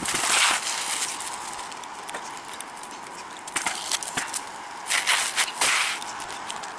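Asphalt shingles and a paper shingle-bundle wrapper being handled on a roof, crinkling and scraping in several short bursts. The loudest come at the start and again about five seconds in.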